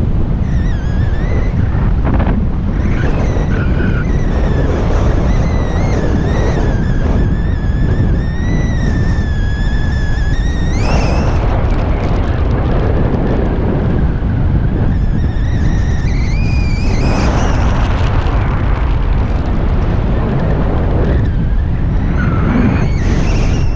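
Strong wind buffeting the microphone in paraglider flight, a steady heavy rumble. Over it runs a wavering high whistle that climbs sharply about halfway through, fades, and comes back briefly later on.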